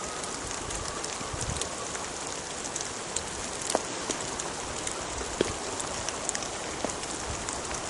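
Steady rain falling on woodland, a continuous hiss with scattered drops ticking close by and a couple of sharper drips near the middle.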